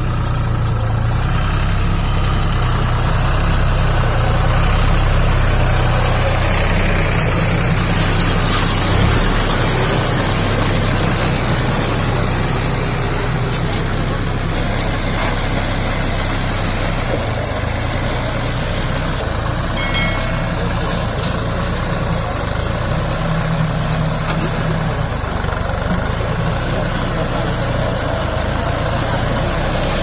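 Deutz-Fahr Agromaxx 4050E tractor's diesel engine running steadily as it drives a round straw baler through the field.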